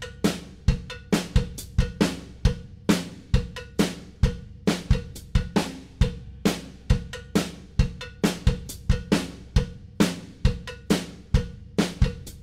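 A drum kit playing a steady beat on its own, kick and snare with hi-hat and cymbal, about three hits a second.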